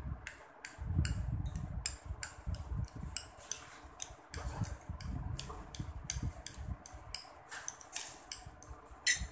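Metal spoon clinking against a small glass bowl while stirring aloe vera gel: repeated light clinks, about three a second, with the sharpest one near the end.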